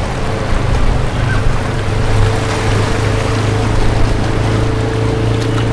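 Steady low engine drone with a thin steady whine above it, under a constant rushing noise.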